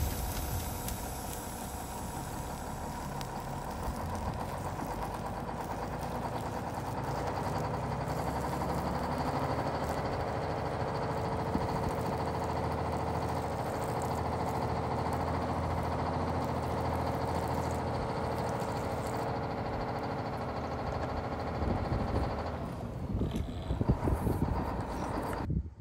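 Small electric water pump humming steadily as it pushes water through a plastic tube. It stops near the end, followed by a few light knocks.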